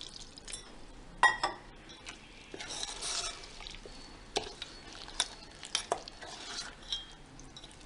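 A spoon stirring wet flour-and-coconut batter in a bowl, with scattered clinks of the spoon against the bowl; one clink rings briefly about a second in.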